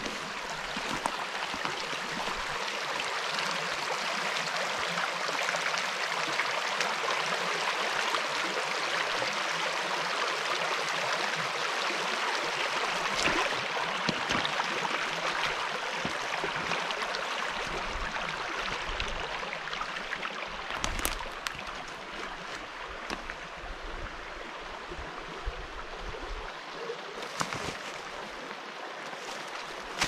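Shallow woodland stream babbling and trickling over stones and gravel in a steady rush of water that eases a little in the second half. A few short crackles or knocks come through around the middle and near the end.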